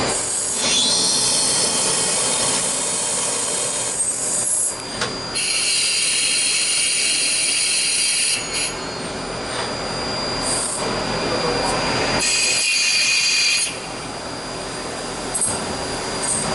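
QUICKTECH DT42-DUO CNC lathe machining a brass bar, spindle turning while gang tools drill and cut it. A high-pitched cutting whine comes and goes in stretches of a few seconds, with short dips as tools change.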